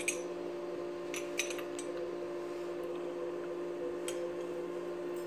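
Chrome metal parts of a shower body-spray trim clinking and clicking against each other in the hands as they are fitted together: a cluster of sharp clicks in the first two seconds and one more about four seconds in, over a steady hum.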